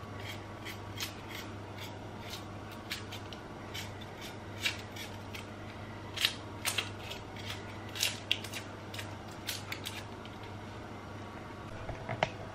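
Kitchen knife scraping and nicking the dry papery skin off a whole onion held in the hand: irregular dry crackling clicks, thinning out about ten seconds in, over a steady low hum.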